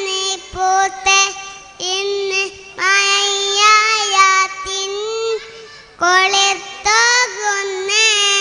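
A young boy singing a Malayalam devotional song about Medina into a microphone, unaccompanied, in phrases of long held notes with short pauses for breath about two and a half and five and a half seconds in.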